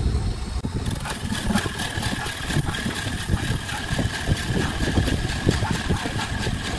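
Wood lathe running with a Forstner bit boring into the end of a spinning segmented wooden vase. About a second in the bit starts cutting, and a steady whine with a dense scraping of wood chips sets in over the motor's low hum.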